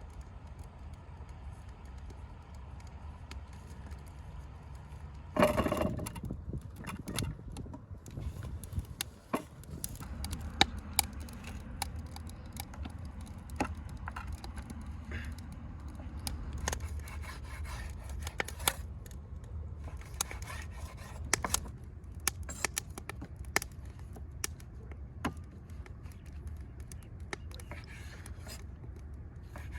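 Irregular clicks, knocks and scrapes of food preparation, utensils and dishes being handled, over a low steady rumble. A louder clatter comes about five and a half seconds in.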